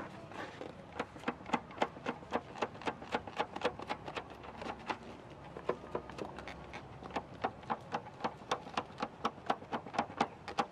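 Rapid, irregular clicking, about three to five sharp clicks a second.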